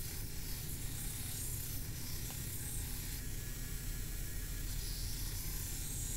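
Belt grinder running steadily with a low hum while a 1070 steel sword blade is pressed against the abrasive belt. The grinding hiss swells from about one to three seconds in and again from about five seconds in.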